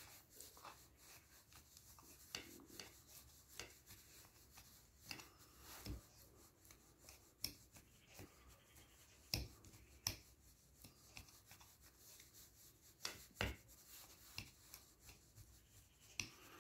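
Faint handling noises: scattered sharp clicks and taps, a few louder ones past the middle, with soft rubbing between them.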